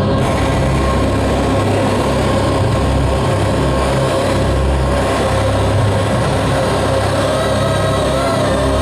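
Loud live band music: a thick, steady wall of amplified distortion over sustained low notes, with a bright hiss filling the top end from the start.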